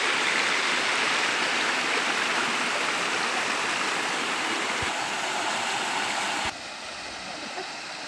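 Spring-fed brook rushing and splashing over stones in a steady rush; about six and a half seconds in it drops suddenly to a quieter, more distant water sound.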